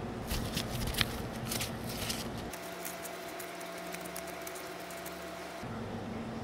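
Gloved hands scooping and squeezing soft, sticky red bean paste: small clicks and wet squishes for the first two and a half seconds. After that there is only a steady faint hum.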